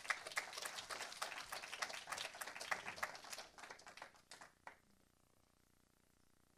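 Congregation applauding with scattered hand claps that thin out to a few last claps and stop about five seconds in.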